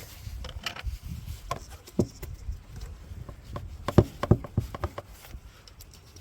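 Scattered small clicks and knocks of hand work on the engine's plastic air intake parts, as the intake hose is bolted back on with an Allen key and the rubber breather pipe is pushed back onto the rocker cover. The loudest are two sharp knocks close together about four seconds in.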